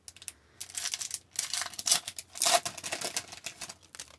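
A hockey card pack's wrapper being torn open and crinkled by hand, in a series of crackling rustles that are loudest in the middle. The cards are then slid out.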